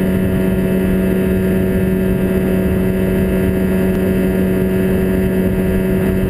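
Jon boat's outboard motor running under way at a constant speed, one unchanging engine note.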